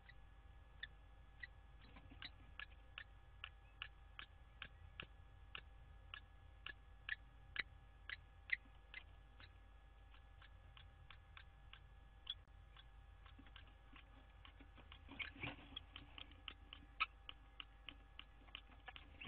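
A bird repeats a short, sharp call note over and over, about two to three times a second, with a louder, busier stretch about three-quarters of the way through. A faint steady hum runs underneath.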